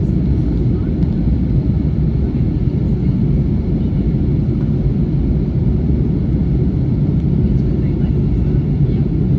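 Airbus A321 cabin noise: a steady low rumble of the jet engines and airflow heard from inside the passenger cabin, without change or sudden sounds.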